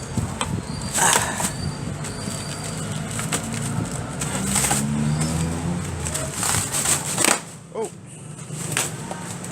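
Packing materials being pulled off by hand: plastic wrap and packing tape crackling and tearing in several noisy bursts, with faint squeaks.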